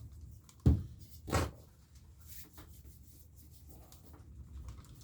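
Two short knocks about 0.7 s apart near the start, then faint scattered handling sounds.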